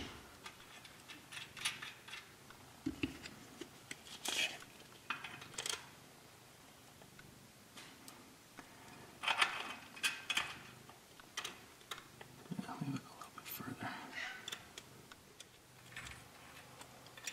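Scattered light metallic clinks and rattles of small bolts, nuts and hand tools being handled against a steel I-beam railing post, in short separate bursts with quiet gaps between.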